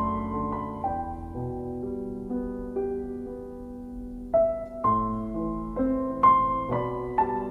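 Background piano music: slow, separate notes and chords that soften in the middle and pick up again about four seconds in.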